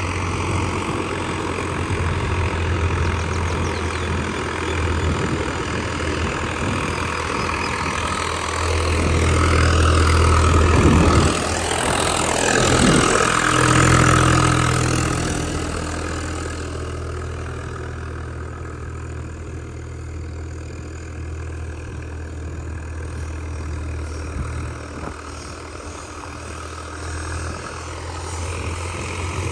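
Swaraj 744 FE tractor's three-cylinder diesel engine running steadily. It grows louder for several seconds in the middle, with a rise and fall in pitch, then settles lower.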